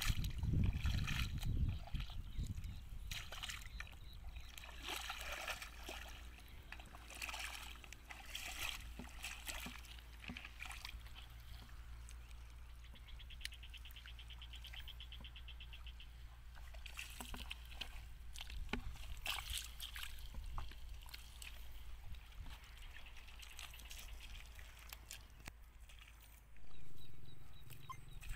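Bare feet splashing and sloshing through shallow muddy puddles in irregular steps and kicks, loudest in the first couple of seconds. A brief rapid trill comes about halfway through, and a low rumble swells up near the end.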